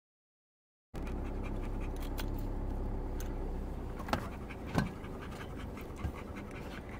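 A dog panting over a steady low rumble, with a few sharp clicks about four, five and six seconds in. The sound cuts in abruptly about a second in, after dead silence.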